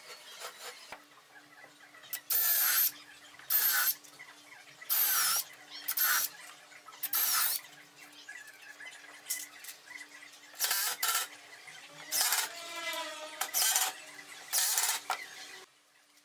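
A workshop power tool run in about ten short bursts of half a second or so, each with a high squeal, over a faint steady hum.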